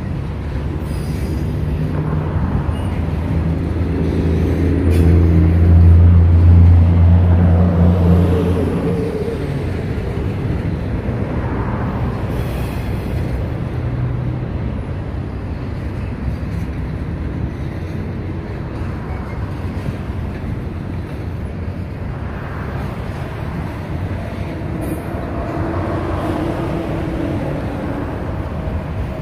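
Freight train of enclosed autorack cars rolling past, steel wheels running on the rails in a continuous noise. A low hum swells to its loudest about six seconds in, then eases back to a steady level.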